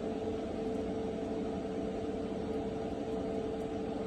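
Steady machine hum with one held mid-pitched tone.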